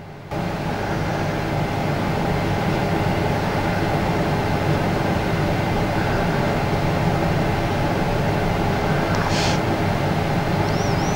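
A steady droning hum with a rumbling noise, starting abruptly about a third of a second in. It is an unexplained sound marked as unknown audio in an EVP recording.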